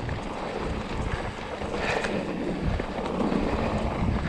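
Mountain bike riding down a dirt trail: wind buffeting the microphone over tyre noise on the ground and small knocks and rattles from the bike.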